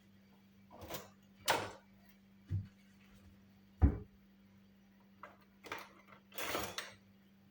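Kitchen items being handled: a series of short knocks and scrapes, the sharpest knock about four seconds in and a longer rustling scrape near the end, over a faint steady hum.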